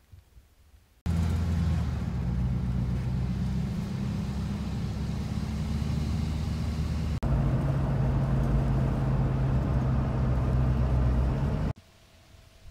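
Pickup truck driving, heard from inside the cab: a steady low engine drone with road noise. It starts abruptly about a second in, jumps in sound about seven seconds in, and cuts off abruptly near the end.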